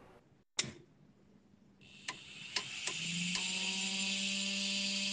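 A desktop 3D printer being switched on: a click, a few light clicks, then its cooling fans start with a steady hiss about two seconds in, joined by a steady low hum about a second later.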